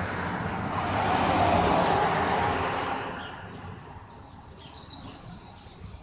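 A car passing on the street: tyre and engine noise swells to its loudest about one to two seconds in, then fades away. A faint steady high-pitched tone follows under the quieter street background.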